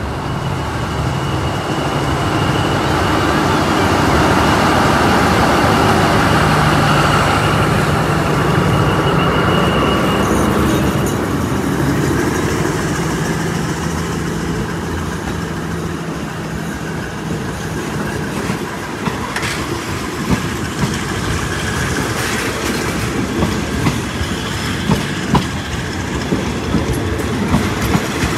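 A train passing close by. A steady rumble and hum is loudest in the first ten seconds or so. In the second half the wheels click over the rail joints.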